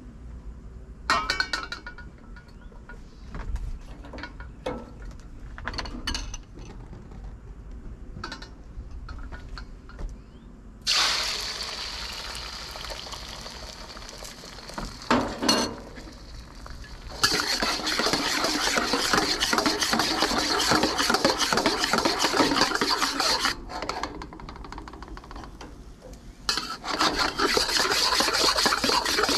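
Light clinks and taps of kitchen utensils against bowls and a wok. About ten seconds in, food hits hot oil in a wok with a sudden sizzle. Later, louder sizzling with a spatula scraping and stirring the food breaks off briefly once.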